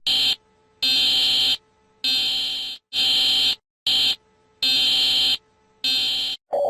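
Emergency alert alarm: a high-pitched electronic tone beeping seven times in uneven bursts, most under a second long with short gaps between them. A lower, steady tone starts right at the end.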